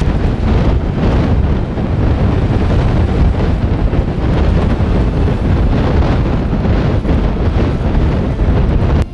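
Strong wind buffeting the microphone: a loud, steady low rumble with a rushing hiss above it.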